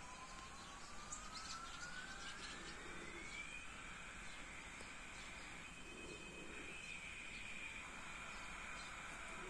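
Faint siren slowly rising in pitch over the first few seconds, then holding a steady high tone.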